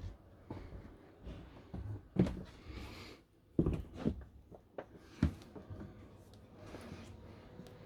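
A few scattered dull knocks and bumps, with a brief soft hiss between them, in a small room.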